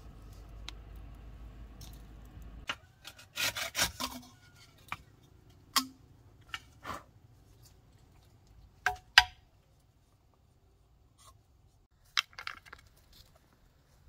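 Scattered clicks, knocks and scrapes of bamboo and sticks being handled beside a campfire, the loudest a pair of sharp knocks about nine seconds in. A low steady rumble at the start cuts off suddenly after about two and a half seconds.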